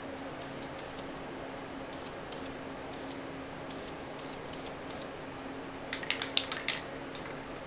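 Aerosol can of Dupli-Color engine enamel spraying paint in short, quick puffs of hiss. About six seconds in comes a quick run of loud, sharp rattling clicks: the mixing ball inside the can as it is shaken. A steady low hum runs underneath.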